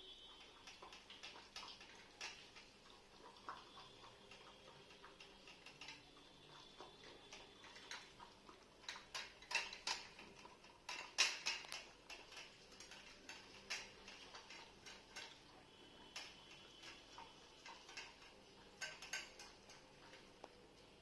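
A kitten lapping milk from a bowl: quick, uneven little clicks of the tongue, louder and sharper for a few seconds in the middle.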